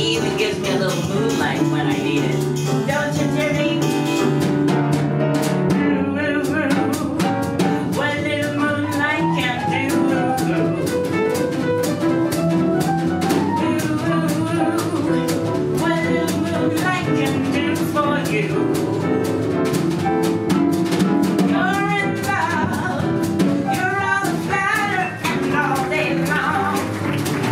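Jazz number from a small band with drum kit and a singing voice wavering in vibrato over it; the drumming grows busier about six seconds in.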